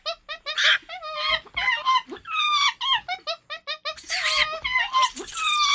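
Rapid series of short, high-pitched animal calls, several a second, most falling in pitch, getting louder about four seconds in.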